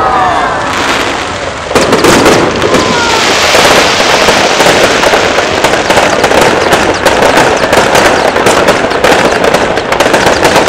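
Fireworks display: after a quieter start, a sudden jump about two seconds in to a loud, dense, continuous crackling and popping of many small bursts, from ground fountains and aerial shells going off together.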